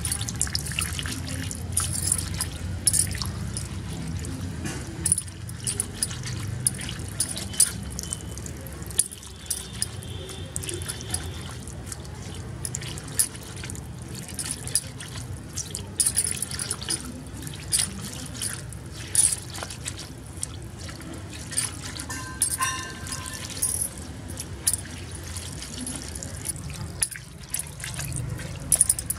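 Wet scraping and slapping of a hand rubbing small fish against a wet concrete floor to clean them, with a thin stream of water trickling onto them and many short clicks.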